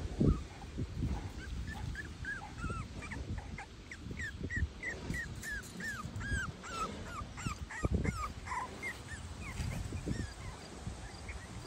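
Four-week-old Cavalier King Charles Spaniel puppies whimpering and yipping: a long string of short, high, falling whines, two or three a second, with a few low thumps.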